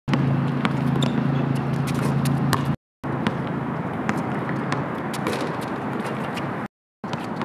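Outdoor basketball court ambience: a steady traffic-like noise with a low hum in the first few seconds, broken by scattered sharp knocks of a basketball bouncing and striking the rim during free-throw attempts. The sound cuts to silence twice, about three and seven seconds in.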